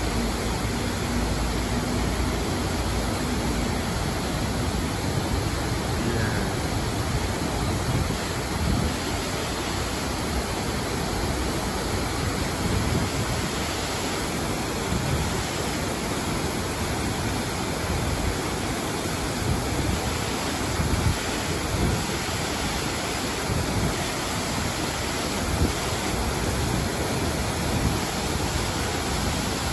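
Steady rush of water from the man-made waterfall at the head of Cheonggyecheon stream, pouring into a shallow pool.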